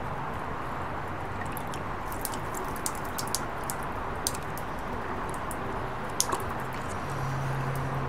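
Water trickling in a thin stream from the open cold-water inlet filter port of a Rheem tankless water heater as the filter cap is unscrewed, with faint small clicks from the plastic cap turning. A low hum comes in near the end.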